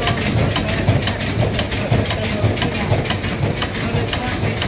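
Plastic-film bag-making machine with a hot-knife cutting unit running at production speed: a steady mechanical hum with a fast, even clacking of several strokes a second as it cycles.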